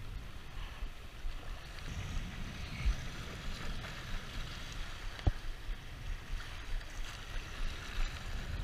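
Small waves washing and lapping over a low concrete pier, with wind rumbling on the microphone. A single light click about five seconds in.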